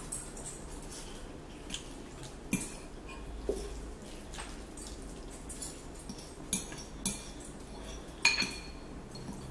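Metal fork clinking and scraping against a ceramic bowl while twirling and lifting noodles: a handful of separate sharp clinks, the loudest near the end.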